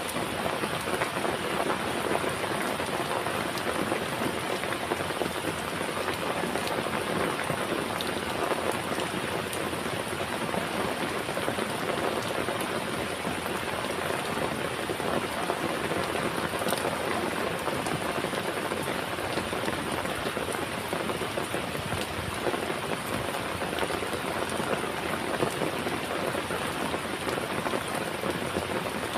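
Heavy rain falling steadily, with a dense patter of individual raindrops striking a surface.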